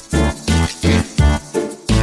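Upbeat background music with a strong bass beat, about three to four beats a second, and bright keyboard notes.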